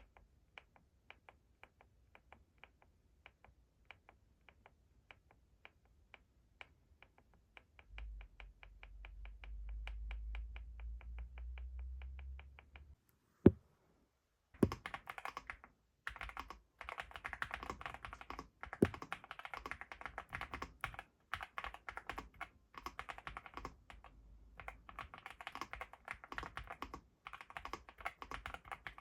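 Steady, fast typing on a NuPhy Gem80 mechanical keyboard with Gateron × NuPhy Raspberry linear switches, starting about halfway through after one sharp click. Before that there is a slow run of evenly spaced light clicks, about three a second, with a low hum under the last few seconds.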